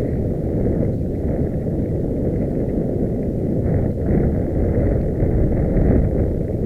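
Wind rumbling on the microphone and trail noise from a mountain bike riding fast over rough ground, a steady loud low rush.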